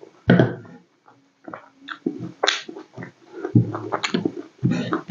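Close-miked chewing and lip-smacking of a person eating rice and besan-fried vegetables by hand: irregular wet mouth smacks and short clicks, several a second.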